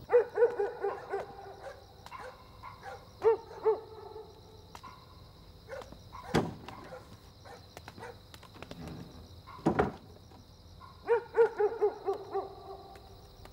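Night ambience: an animal calls in short, quick runs of pitched notes, at the start, about three seconds in and again near the end, over a steady high chirring like insects. Two sharp knocks fall between the runs.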